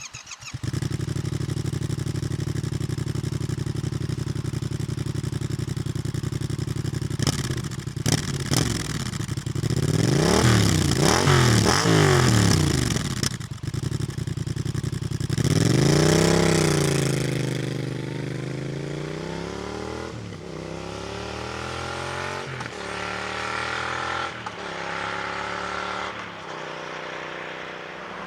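Yamaha XSR 700's 689 cc parallel-twin engine through a Roadsitalia Thunder exhaust with Euro5 catalyst and dB killer, idling steadily, then blipped several times about ten seconds in and revved once more strongly around sixteen seconds. In the last ten seconds the pitch climbs in stretches broken by short dips, like the bike pulling away and shifting up through the gears.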